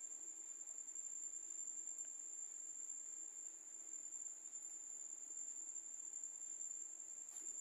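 A faint, continuous high-pitched tone, unbroken and steady in pitch, over a weaker low hum.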